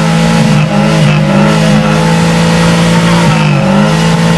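Toyota Corolla's engine revved up and held at steady high revs through its exhaust, with a brief dip about three seconds in.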